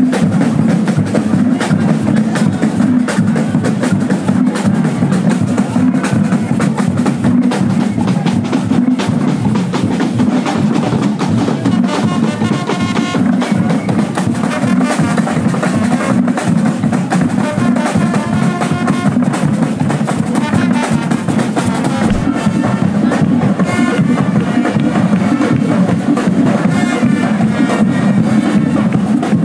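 Carnival street band's drums playing together in a dense, driving rhythm that never stops, with higher pitched tones joining over it from about halfway.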